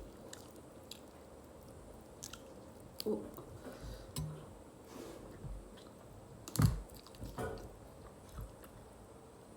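Close-miked chewing and biting of Kuroiler chicken, with wet mouth clicks and soft crunches. One sharp, louder click comes about two-thirds of the way through.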